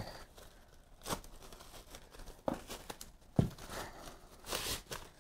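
Plastic wrapping crinkling and rustling as it is pulled off a monitor stand base, with three short sharp clicks in between.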